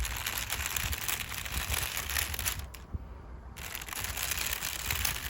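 Makeup brush bristles brushing over crinkle paper: a dense crackling rustle that stops for about a second midway, then starts again.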